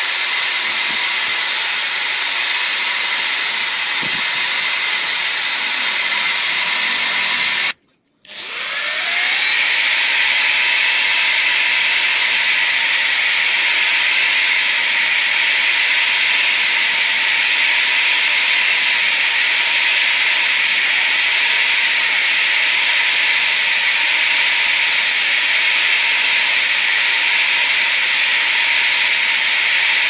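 MODERN corded electric drill, clamped on its side as a bench drill, running steadily at full speed while holes are bored through a thin wooden strip. About eight seconds in it cuts out briefly, then spins back up with a rising whine.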